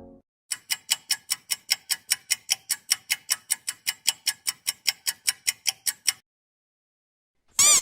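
Clock-ticking sound effect: fast, even ticks, about five a second, that stop after about six seconds. Near the end a short, high-pitched cartoon pop begins.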